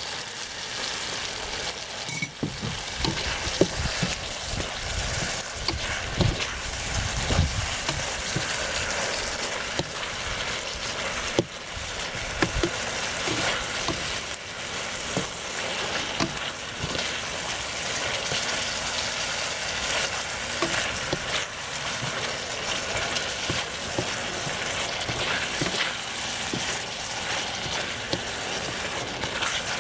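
Tomatoes and onions sizzling steadily in a hot pan in a thin sauce just loosened with a little water, with the clicks of a plastic slotted spatula stirring and scraping the pan now and then.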